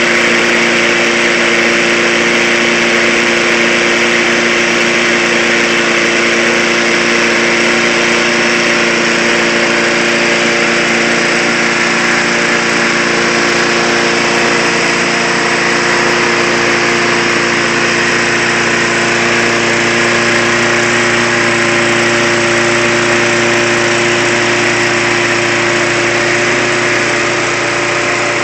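Briggs & Stratton single-cylinder lawn mower engine, converted to run on propane (LPG), running steadily at a constant speed. It drops slightly in level near the end.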